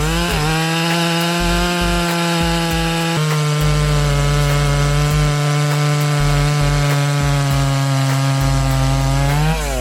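Large 122 cc two-stroke chainsaw at full throttle cutting into wood. Its pitch drops and settles about three seconds in as the saw takes the load of the cut, holds almost steady, then rises briefly near the end before falling away.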